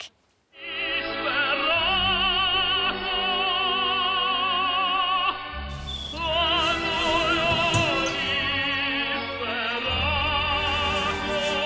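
Opera music: a singer with wide vibrato over sustained accompaniment, starting about half a second in.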